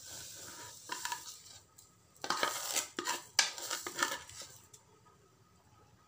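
Semolina poured into simmering water in a frying pan with a soft hiss, then a spatula stirring and scraping against the pan in a quick run of strokes from about two seconds in until nearly five seconds in.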